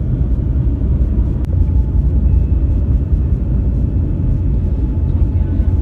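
Steady low rumble of a vehicle on the move: engine and road noise, with a single faint click about one and a half seconds in.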